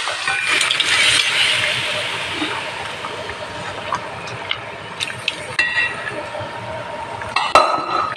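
Boiled kidney beans and their cooking water poured into a steel pan of hot fried masala, hissing and sizzling as the liquid hits. The hiss fades after a couple of seconds, and then comes a few sharp clinks of the steel vessel against the pan, the sharpest near the end.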